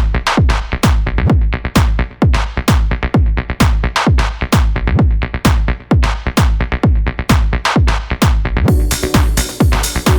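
Electronic dance music with a steady kick drum beating about twice a second. A bright hissing layer comes in near the end.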